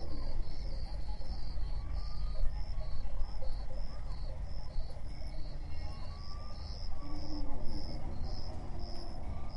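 Crickets chirping in a steady pulsed rhythm, about three chirps a second, over a constant low rumble.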